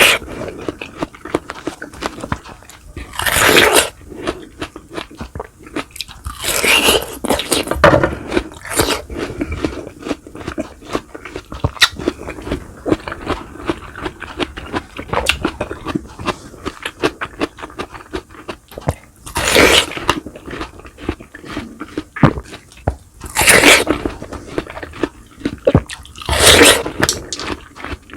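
Close-up mukbang eating sounds: a person chewing and biting crispy fried boneless milkfish (daing na bangus) with rice, with steady wet chewing clicks and several loud crunches, the biggest a few seconds in, around two-thirds of the way through and near the end.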